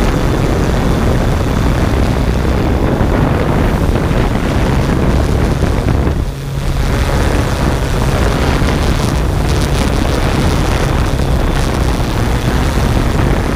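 Multirotor drone's motors and propellers running, a steady loud hum under rushing noise, with wind buffeting the microphone; it briefly drops about six seconds in.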